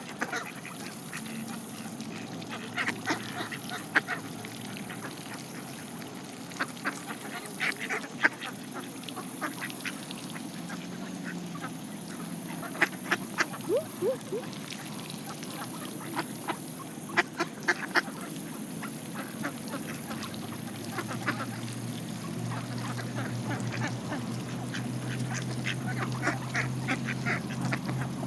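Mallard ducks quacking as they feed on seeds alongside Canada geese, with quick runs of sharp clicks from bills pecking at the seed.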